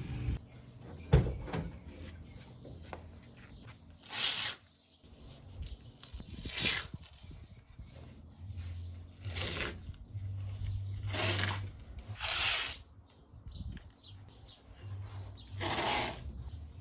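Masking tape being pulled off the roll and torn in short strips, about six times, with quieter handling sounds between.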